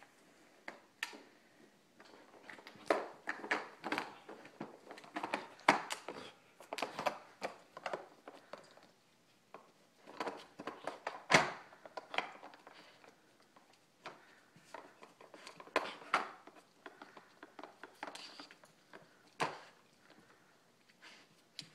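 A Dog Casino treat puzzle toy clattering as a puppy works at it: irregular clicks and knocks, thickest in a run after the start, with one sharper knock about halfway through and more scattered knocks later.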